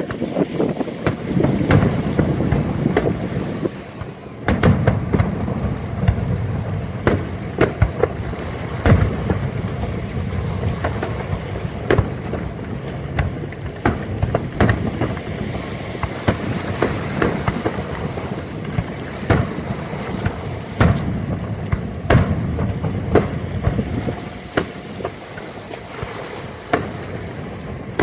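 Aerial fireworks bursting at a distance: an irregular string of sharp bangs and crackles, at times several a second, over a low rumble of wind on the microphone.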